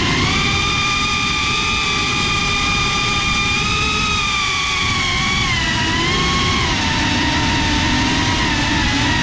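FPV quadcopter's brushless motors and propellers whining in flight, the pitch rising and falling with the throttle and stepping down about two thirds of the way through, over a heavy rush of wind and prop wash on the onboard camera's microphone.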